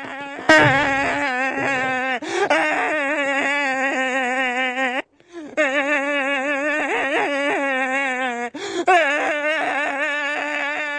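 A cartoon man screaming in one long, wavering yell held at a steady pitch, broken only by quick breaths about two, five and eight and a half seconds in.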